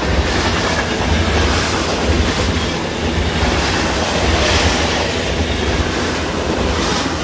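A train running across the viaduct: a heavy rumble with rail and wheel noise that swells around the middle and eases toward the end.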